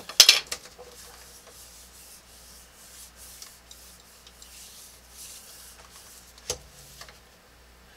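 Plastic drafting triangle and scale scraping and rubbing over paper on a drafting table, loudest just at the start as they are set down and slid into place, then softer rubbing strokes. One sharp tap about six and a half seconds in.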